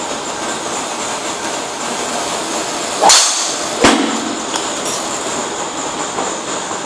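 A TaylorMade Burner driver swung and striking a teed golf ball about three seconds in, a loud sudden crack, followed under a second later by a second sharp, short crack, over a steady background rumble and hiss.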